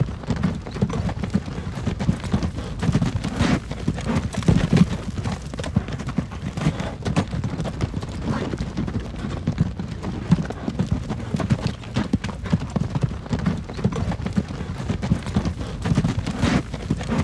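Horse-drawn wagon on the move: hooves clip-clopping steadily over a continuous low rumble of the wheels.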